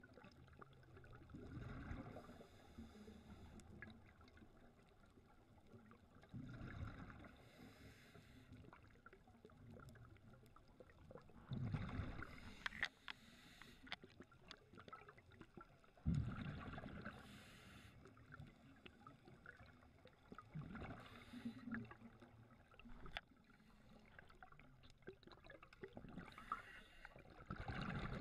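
Scuba diver breathing through a regulator: a burst of exhaled bubbles about every four to five seconds, each followed by a hiss of inhalation.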